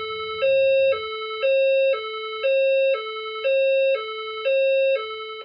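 Fire alarm speaker-strobe sounding a loud two-tone signal, a low and a high note alternating every half second, about five times over. It is the alert tone that comes before the recorded voice message announcing a reported event in the building.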